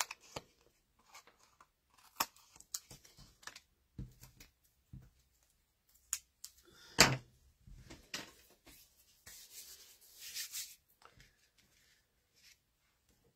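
Cardstock being handled and set down on a craft mat: scattered light taps and paper rustles, with a sharper tap about seven seconds in and a soft sliding rustle around ten seconds in.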